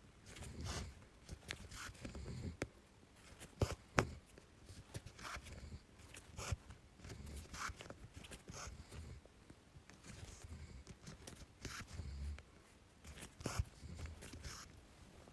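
Embroidery thread pulled through cross-stitch fabric again and again: short, faint rasping pulls, irregular, about one a second, with a sharp click about four seconds in.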